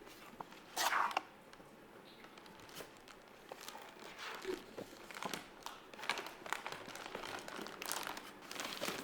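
Packaging being handled and crinkled by hand, with a loud crinkling rustle about a second in, then a run of small crackles, clicks and rustles.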